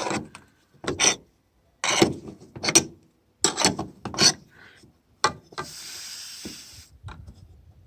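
Stiff roof-bar clamp being worked loose with a hand tool: short rough metal scrapes and creaks roughly a second apart, then a steady hiss lasting about a second.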